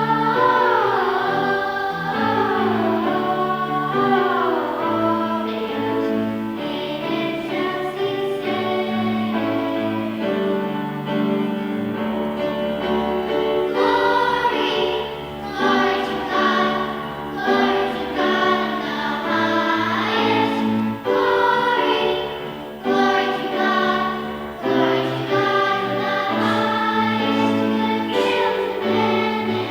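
Church choir singing, many voices holding sustained notes over a steady low part.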